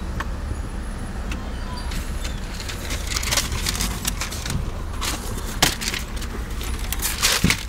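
Steady low rumble of a 1992 Jeep Wrangler Renegade running, heard from inside the cab. From about three seconds in come sharp clicks, rattles and knocks of things being handled, loudest near the end.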